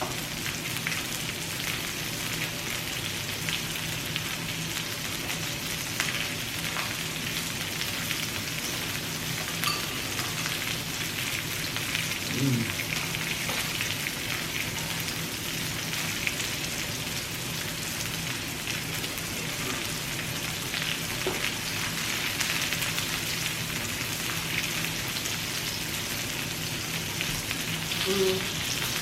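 Pork belly sizzling on a grill: a steady frying hiss with scattered small crackles and pops of spitting fat.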